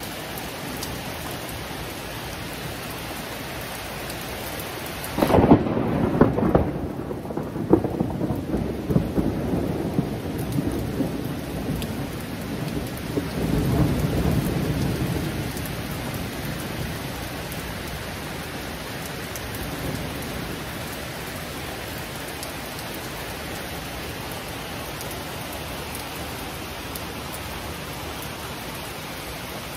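Heavy rain falling steadily, with a sharp clap of nearby thunder about five seconds in. The thunder rolls on in rumbles, swells again near the middle, then fades back under the rain.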